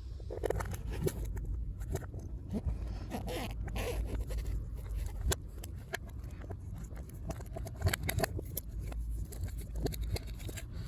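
Scattered clicks and short scraping sounds of parts being handled, over a low steady rumble.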